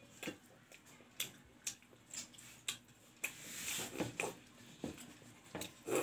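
Close-miked eating sounds: a string of wet mouth clicks and lip smacks as she chews. About halfway through there is a longer slurp as she sips broth from a steel bowl, and a louder slurp or gulp comes at the end.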